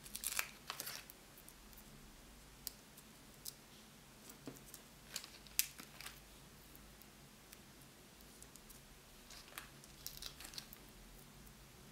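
Faint scattered crisp clicks and rustles of paper and a sheet of 3D foam adhesive pads being handled, with pads peeled off and pressed onto a paper cut-out. The clicks come in a cluster at the start and again about ten seconds in.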